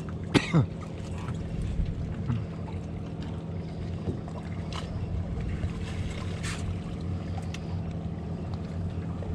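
Boat engine idling steadily, a low even hum, with a few short sharp knocks, the loudest about half a second in.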